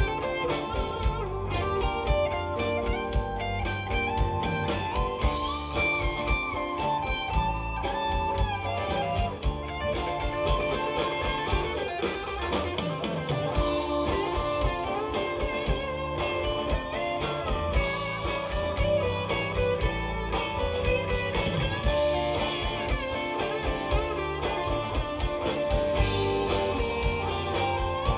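Band music led by guitar, with drums keeping a steady beat, in a bluesy style.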